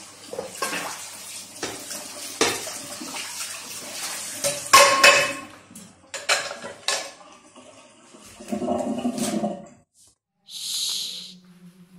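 Dishes and metal pots clattering at a kitchen sink with the tap running. The loudest clang, about five seconds in, rings briefly: a metal pan knocking as it is hung on the wall pot rack. A short hiss follows near the end.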